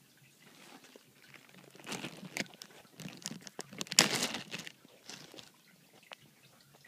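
Handling noise: rustling and rubbing with a few sharp clicks as the phone is moved over the blanket, loudest about four seconds in.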